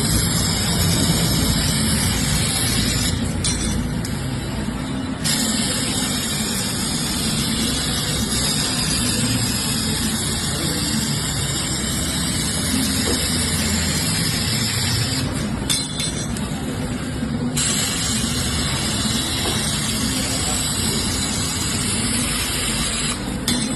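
CNC laser cutting machine at work: a steady, loud hiss over a low machine rumble. The high part of the hiss drops away three times for about two seconds each.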